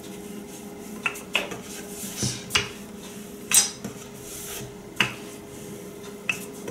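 Wooden rolling pin working sugar-cookie dough on a wooden countertop: a scattering of short knocks and clacks, about seven of them, as the pin is rolled, lifted and set down.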